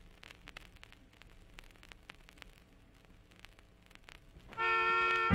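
Vinyl record surface noise in the lead-in groove: a low hiss with scattered clicks and crackles. About four and a half seconds in, the first track's music starts with a loud held chord.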